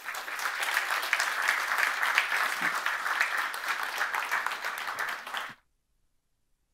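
Audience applauding, a dense even patter of hand claps that cuts off suddenly about five and a half seconds in.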